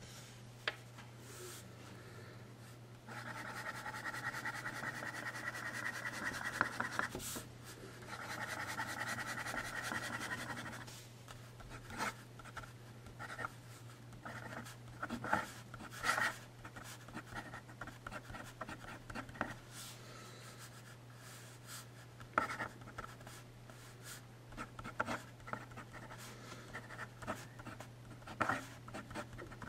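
Fountain pen nib scratching across paper. Two long stretches of continuous scratching come in the first half as rows of loops are drawn, then short separate scratches follow as words are written.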